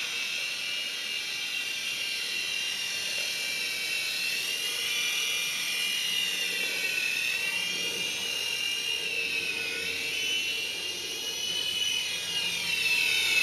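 Kyosho EGG toy radio-controlled helicopter whining steadily, its small motor and rotor rising and falling in pitch as the throttle changes in flight.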